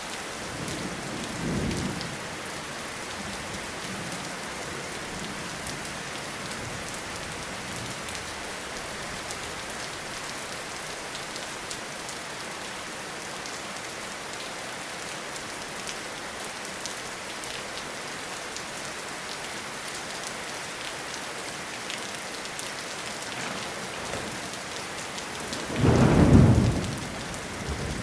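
Steady rain falling in a forest, with individual drops ticking sharply. A short, loud clap of thunder near the end, after a fainter low rumble near the start.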